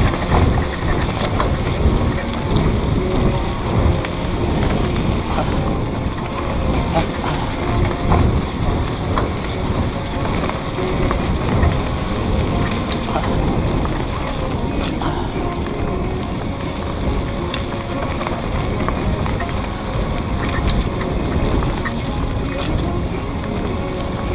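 Steady low rumble of wind and movement noise on the microphone, with scattered small clicks and knocks.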